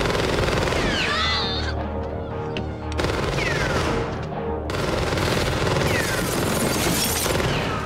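Long bursts of automatic submachine-gun fire, three of them, with people screaming, over a loud rock song playing in a nightclub.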